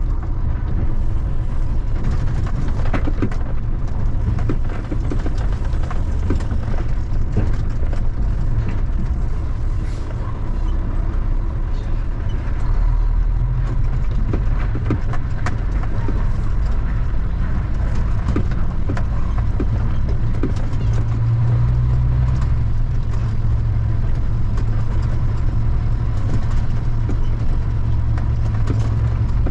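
Heavy truck's engine running at low speed on a rough dirt track, heard from the cab, with frequent knocks and rattles as the truck bounces over the ruts. The engine note shifts a couple of times, about halfway through and again later.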